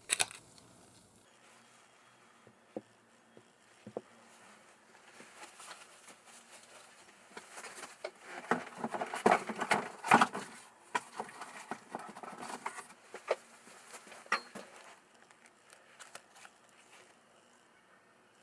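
Hand-work handling noises: scattered light clicks and knocks with rustling and crinkling, busiest and loudest in the middle stretch, then tapering off.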